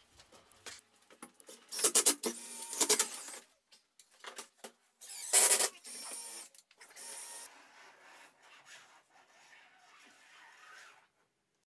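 Cordless drill-driver running in two short, loud bursts, driving screws into timber battens on the roof framing, followed by softer scraping and handling noise that stops near the end.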